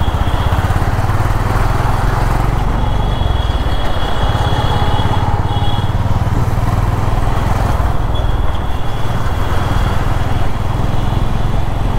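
Honda CB350's single-cylinder engine running steadily as the motorcycle rides through city traffic, with road and wind noise over it.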